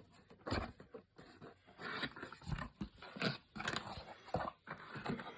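Cardboard box being cut open with a knife and its packaging handled: irregular scrapes, cuts and rustles.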